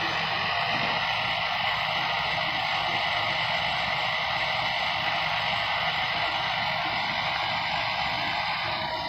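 Hair dryer running steadily, an even airy hiss.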